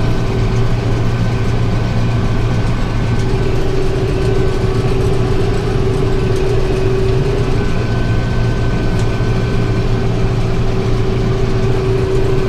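Tractor engine running steadily under load with the round baler working behind it, a steady low drone with a constant whine on top as it picks up hay and fills the bale.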